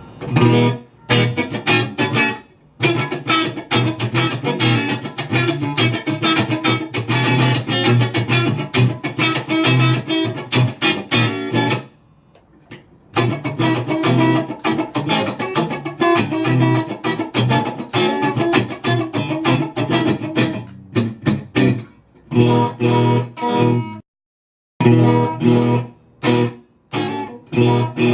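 Electric guitar played through an Egnater Tweaker tube amplifier into a VHT Special 6 1x12 cabinet: busy runs of quickly picked notes. The playing stops for about a second midway, and there is a short dead-silent gap near the end.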